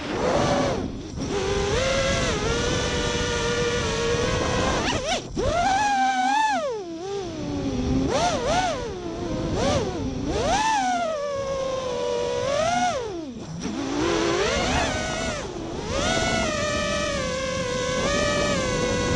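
Whine of a 3D FPV racing quadcopter's Emax RS2205 2300kv brushless motors spinning 5-inch 3D props, the pitch sweeping up and down with the throttle as it flips and flies inverted. Twice the whine drops away briefly and comes straight back.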